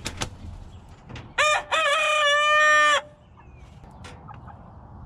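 A young cockerel, about three and a half months old, crowing once: a short first note, then a long held note lasting about a second before it cuts off abruptly. A few faint clicks come before the crow.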